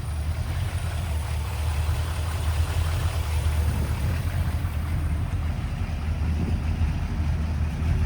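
The Chevrolet C10's GM ZZ383 crate V8 idling steadily with a low, even rumble.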